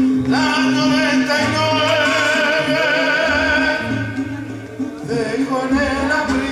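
Male tenor singing a Spanish religious song into a microphone, holding long notes with vibrato over an instrumental accompaniment with a steady bass line. The voice eases off briefly about four seconds in, then comes back in.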